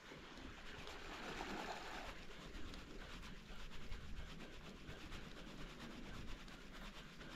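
Fishing reel being cranked steadily to retrieve a lure: a faint, fast, even ticking whir from the reel.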